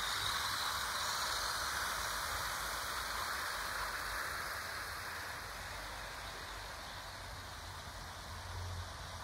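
OO gauge model trains running on garden track: a steady rushing hiss of wheels on rail that slowly fades as the trains draw away.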